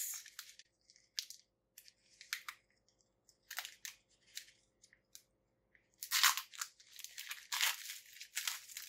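Foil wrapper of a Pokémon booster pack crinkling as it is handled and opened: scattered short crinkles at first, then dense, continuous crinkling from about six seconds in.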